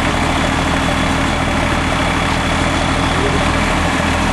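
Diesel engines running steadily together: an 18-horsepower Yanmar compact tractor's diesel working under load as it tows a stuck Dodge Ram 3500 diesel dually out of mud, with the truck's diesel also running.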